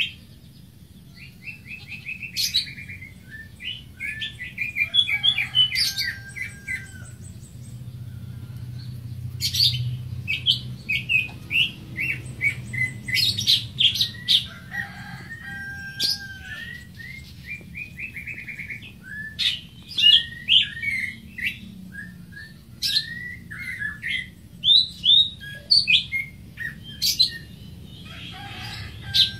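Greater green leafbird singing: a varied run of quick chirps, trills and short whistles in bursts, with brief pauses between phrases. A faint low hum runs underneath.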